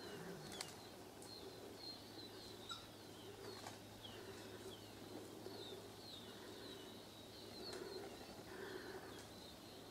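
Faint, many short high peeping calls overlapping throughout, from a large flock of young game birds, most likely young pheasants, with softer lower calls beneath and a few faint clicks.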